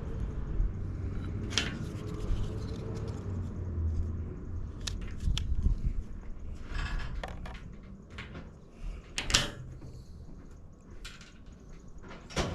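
Scattered sharp clicks and light knocks of small parts and hand tools being handled, over a low rumble that fades after about six seconds.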